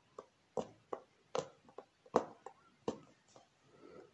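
Punch needle stabbing in and out of fabric stretched tight in a wooden embroidery hoop, making small close stitches. Each punch is a short soft click, about two a second.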